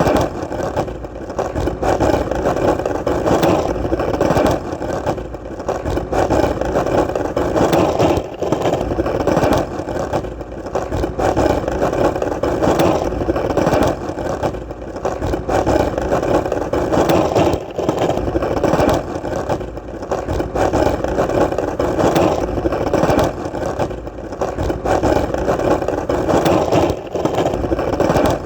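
Skateboard wheels rolling over hard ground: a continuous gritty rumble with light ticks, dipping briefly every few seconds.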